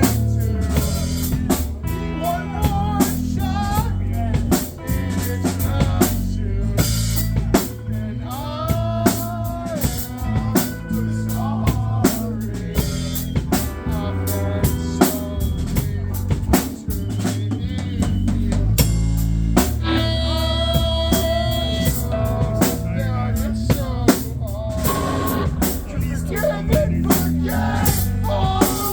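A live rock band playing a song, with the drum kit prominent: steady bass drum and snare hits under a bass line and melodic lines.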